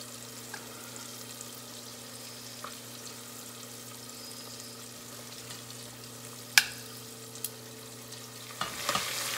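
Cornstarch-coated chicken pieces deep-frying in peanut oil in a stainless steel saucepan: a steady sizzle and bubbling over a steady low hum. A sharp click comes about six and a half seconds in, and there are knocks and handling sounds in the pan near the end.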